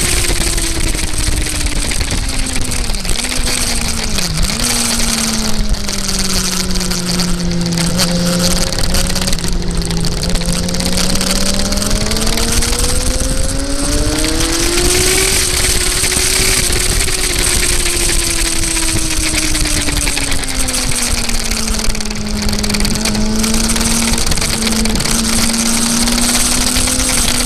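Off-road motorcycle engine running under changing throttle, its pitch falling and rising, with two quick dips a few seconds in and a long climb about halfway through, over a steady hiss.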